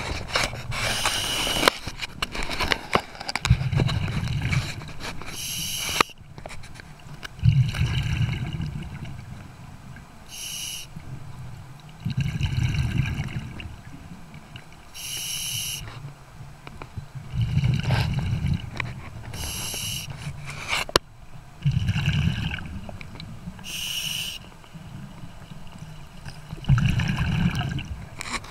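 A scuba diver breathing through a regulator underwater: a short hiss from the regulator on each inhale, then a rumbling, gurgling burst of exhaled bubbles. The cycle repeats about every four to five seconds.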